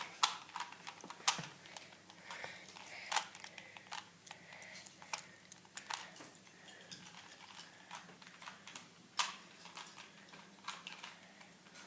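Plastic Rubik's cube clicking and clacking as its layers are turned by hand: irregular quick clicks, with a few louder clacks.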